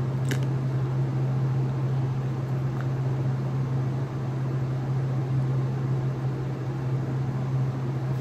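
Steady low hum under an even hiss, with one brief click about a third of a second in.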